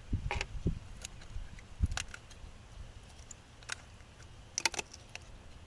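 Scattered light clicks and taps of hard objects being handled, with a dull knock about two seconds in and a quick run of clicks near the end.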